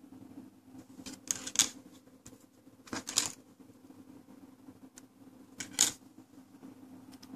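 Handling noise: three brief bursts of clicks and rustles a couple of seconds apart, over a steady low hum.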